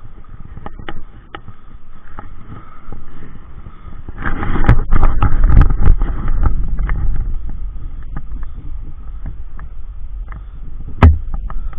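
River water sloshing and splashing around hands and a landed brown trout held in the water for release, with close rubbing and clicking of handling noise on the microphone. A louder splashy stretch about four seconds in lasts a few seconds, and a single sharp knock comes near the end.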